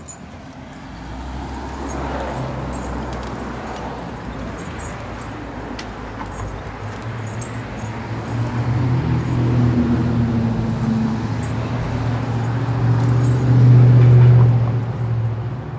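Low, steady engine-like hum that grows louder in the second half and peaks shortly before the end, like a motor vehicle running close by.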